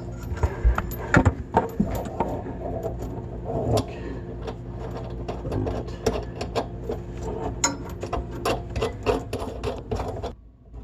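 Irregular small metallic clicks and clinks of a small wrench working on a faucet's mounting nut and fittings as a new tap is fastened in place.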